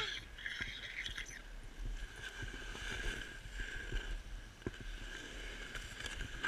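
Snowboard sliding and scraping over packed snow on a descent, with a steady low rumble and scattered small knocks.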